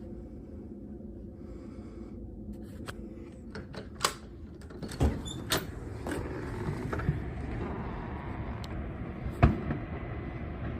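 Tornado wind with a low roar that swells from about halfway through. A handful of sharp bangs and knocks cut through it, the loudest near the end.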